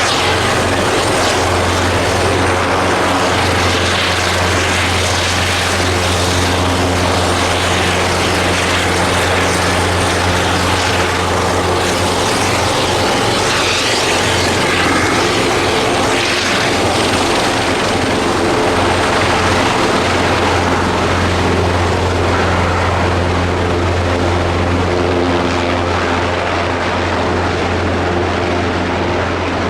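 Airbus Helicopters EC225LP Super Puma's twin turboshaft engines and main rotor running steadily, a loud low rotor thrum under a continuous turbine roar.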